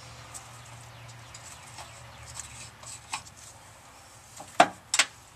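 Light scattered ticks and clicks of a hand tap in a T-handle tap wrench, an M10 x 1.5 tap cutting threads into a steel truck frame hole. Near the end come two sharp knocks about half a second apart, the loudest sounds.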